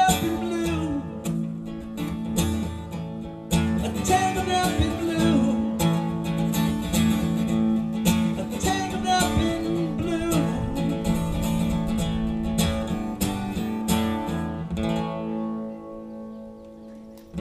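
Acoustic guitar strummed through a PA, playing an instrumental outro with a wavering melody line over the chords. The sound dies away in the last couple of seconds.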